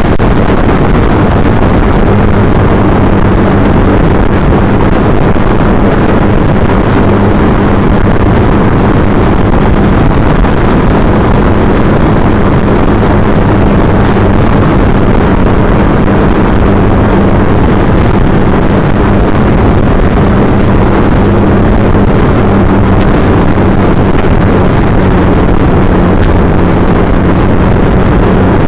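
Heavy wind rush over the microphone of a moving motorcycle, with the 2010 Triumph Bonneville T100's 865 cc parallel-twin engine droning steadily underneath at cruising speed.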